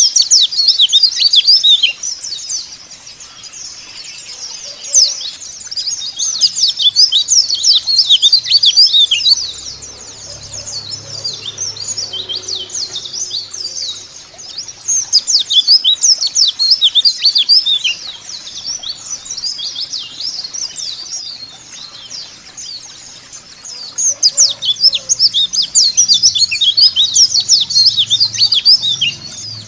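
White-eyes (pleci) twittering: fast, high-pitched chirps in loud bouts of a few seconds each, with softer chirping in between.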